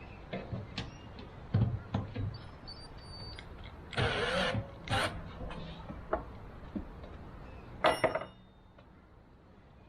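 Metal parts and hand tools knocking and clinking while a vintage air compressor is taken apart, with a short scraping rush about four seconds in and a loud metallic clank near eight seconds that rings briefly.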